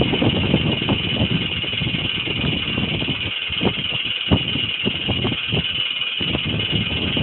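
A flagpole shaking in the wind, rattling and knocking at an irregular pace over a steady wind noise.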